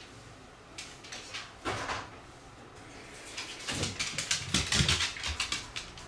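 Shiba Inu's claws clicking and paws thudding on a wooden floor as it runs up, a quick run of clicks and light thuds in the second half, with a few scattered taps before it.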